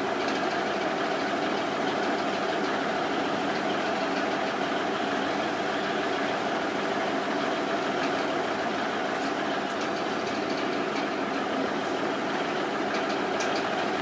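A steady mechanical hum with several held tones, like a motor or engine running without change, and a few faint high ticks near the end.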